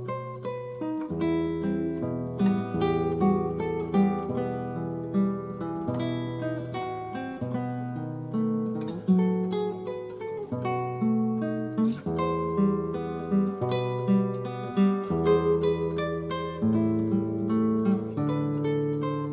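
Acoustic guitar playing an instrumental tune, plucked melody notes over a bass line.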